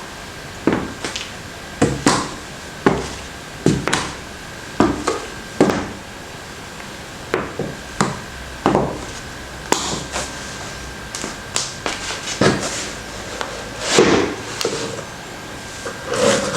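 Stiletto heels of patent leather Oxford pumps clicking on a hard floor in walking steps, about one step a second, some steps landing as a quick double click.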